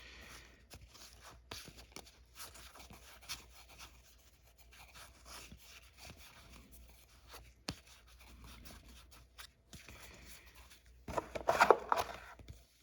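Trading cards being handled and flipped through by hand: faint rustles and small clicks of card stock, with a louder rustle near the end.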